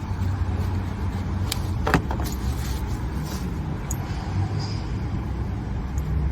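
A few sharp metal clicks and clinks of hand tools and parts, the loudest about two seconds in, as the last ignition coil and spark plug on a Jeep Cherokee's engine are worked on, over a steady low rumble of passing traffic.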